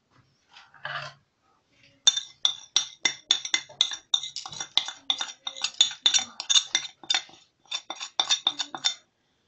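Metal spoon tapping and scraping against a plate in quick ringing clinks, about four a second, knocking spices off it into a bowl of peeled onions.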